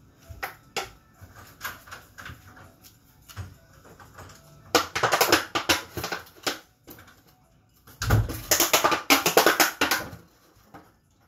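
A Jindo dog chewing and biting an empty plastic water bottle, the thin plastic crackling and crunching. There are scattered clicks at first, then two long bouts of dense, loud crunching, about five seconds in and again about eight seconds in.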